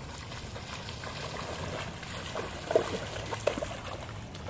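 Small children's feet wading and stomping through a wide, shallow rainwater puddle: water splashing and sloshing, with a few sharper splashes past the middle.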